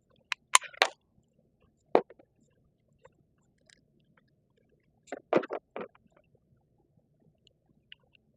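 Sharp metallic clicks and clacks of a Glock G44 .22 pistol being handled: a few near the start, a single sharp one about two seconds in, and a quick run of four or five around five seconds in. The pistol is being worked after a malfunction, with a spent Aguila case stuck in the chamber.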